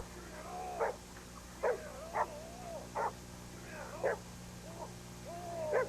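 A bulldog barking in short sharp single barks, about six of them, with high rising-and-falling whining between the barks.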